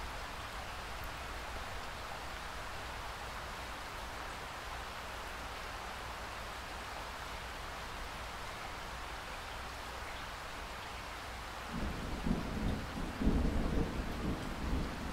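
Steady rain hiss, joined near the end by a rolling rumble of thunder that swells in uneven surges and keeps going.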